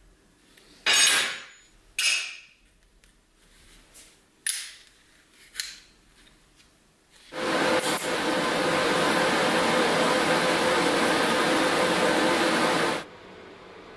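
A few separate clinks of steel plate pieces being handled and set into a magnetic welding square. About seven seconds in, a TIG welding arc strikes and runs as a steady hiss with a faint hum for about six seconds, then cuts off suddenly, leaving a much quieter steady hiss.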